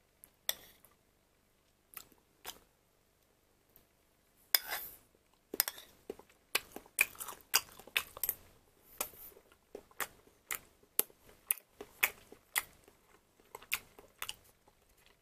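A person chewing food with mouth clicks: a few at first, then several short clicks a second from about four seconds in.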